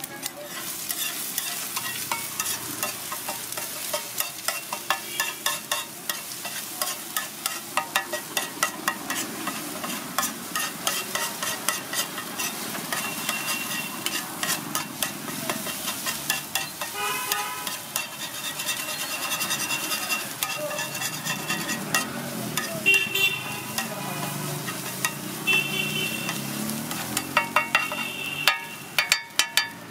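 Flat metal spatula chopping and scraping egg bhurji on a hot flat griddle: a rapid, uneven run of clanks and scrapes over the steady sizzle of frying egg and oil, with the loudest clanks near the end. A few short ringing tones sound in the middle.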